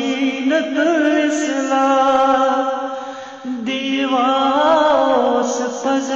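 A man singing an Islamic devotional chant (nasheed), unbroken, with long held notes and ornamented, wavering pitch. The voice drops briefly about three and a half seconds in, then carries on.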